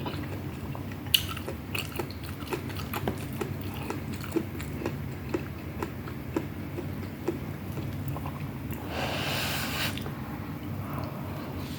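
A person chewing a mouthful of food close to the microphone, with small wet clicks at about two a second. A brief hissing noise lasts about a second near the end.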